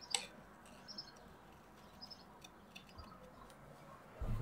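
Small scissors cutting around a stamped image on card stock: faint, crisp snips and paper handling, with a sharper click just after the start and a louder rustle near the end.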